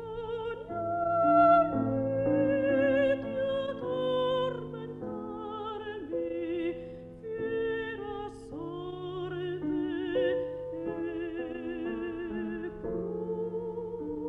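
Mezzo-soprano singing an Italian Baroque aria in full operatic voice, with a marked vibrato on sustained notes, accompanied by a piano.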